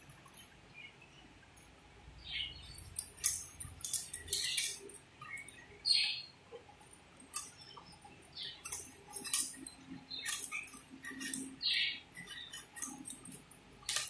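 Pumpkin being sliced on a floor-mounted bonti blade: irregular short scrapes and clicks as the pieces are pushed against the edge.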